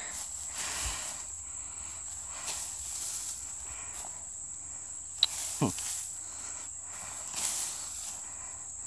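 Dry grass clippings rustling in bursts as a hand rakes through a pile, over a steady high insect trill. One sharp click about five seconds in.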